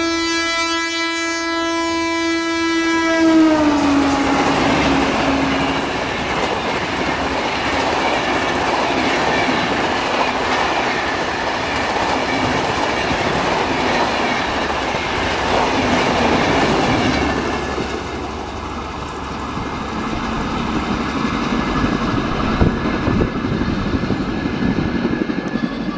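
WAP-4 electric locomotive's horn sounding as it approaches, its pitch dropping sharply as it passes about three seconds in. Then comes the continuous rush and clickety-clack of the express's coaches going by at speed, which eases off around eighteen seconds in.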